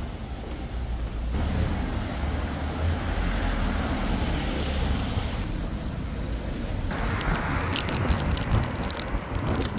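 Town street ambience with steady traffic noise and low rumble, which changes abruptly about a second in and again about seven seconds in, with a run of sharp clicks near the end.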